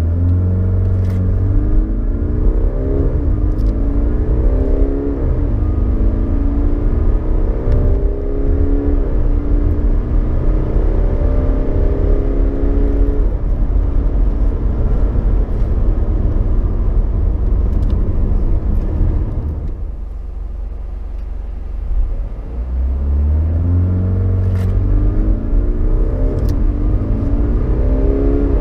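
Jaguar XF 20D's 2.0-litre four-cylinder diesel heard from inside the cabin, pulling at full throttle from a standstill. The engine note rises and drops back several times in the first half as the automatic gearbox upshifts, then eases off and quietens about two-thirds of the way through. A second full-throttle launch starts near the end, its note again rising through the gears.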